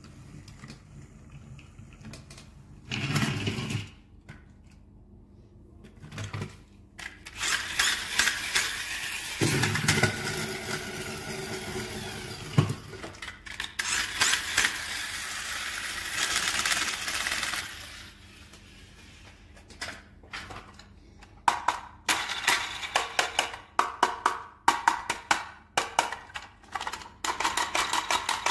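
Plastic toy vehicles being handled: scattered knocks and rattles, a long stretch of dense clatter in the middle, and a fast run of clicks near the end.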